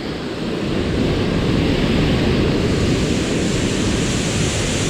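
Steady rushing of river water below a waterfall, an even noise with no let-up.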